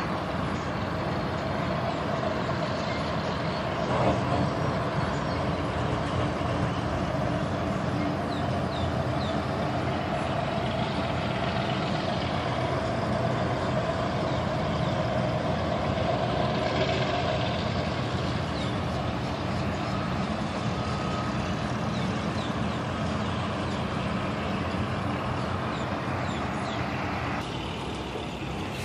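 Steady drone of vehicle engines and traffic, with a faint held hum that fades out about eighteen seconds in.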